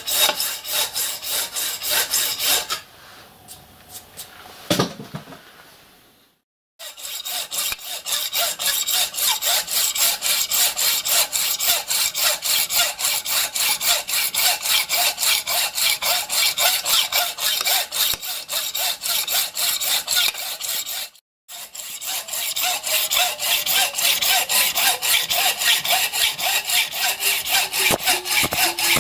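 Hand hacksaw cutting through a metal bar clamped in a vice, in a steady rhythm of back-and-forth strokes, about two to three a second. Near the start the sawing pauses for a few seconds, broken by a single knock, then carries on.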